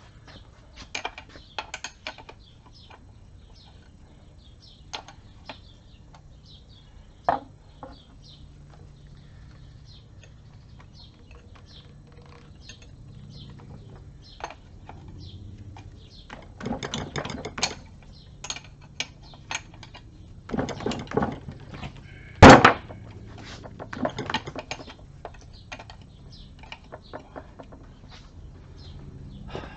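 Hand tools and metal parts clinking and tapping at irregular intervals, with bursts of clatter and one sharp, loud metal knock a little past the middle.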